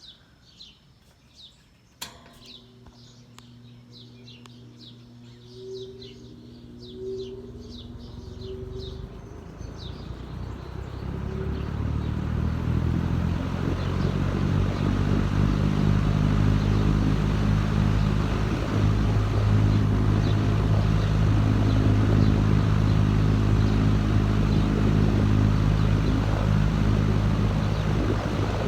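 Vintage Dominion 20-inch box fan switched on at high speed with a click about two seconds in. Its motor hum and the rush of air from the blade build for about ten seconds as it spins up, then hold steady and loud. Birds chirp faintly during the first several seconds.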